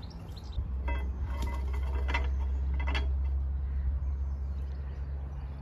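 Diesel narrowboat engine running with a low steady note that grows louder about half a second in and eases off slightly toward the end, with three sharp knocks in the first few seconds.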